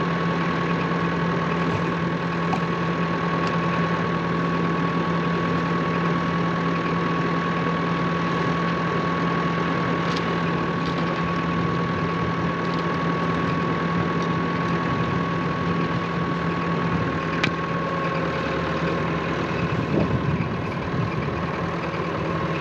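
An engine idling steadily with an even hum, and a few faint clicks over it.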